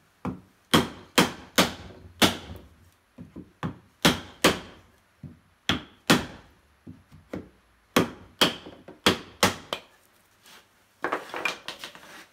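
A hand hammer striking repeatedly, about twenty sharp blows at roughly two a second, each with a short ring: working to get the fuel pump off the fuel tank. Near the end the blows give way to a brief scraping and rustling of handling.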